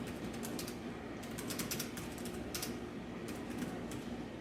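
Typing on the SHARKK wireless Bluetooth keyboard case for the iPad Air: irregular runs of key clicks, in several quick bursts with short pauses between.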